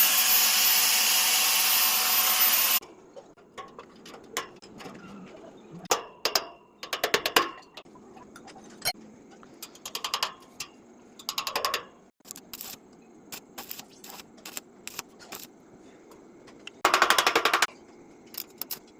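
Power tool work on stainless steel railing fittings: a loud, steady noise cuts off about three seconds in, followed by scattered metal clicks and taps and several short bursts of rapid clicking, the longest near the end.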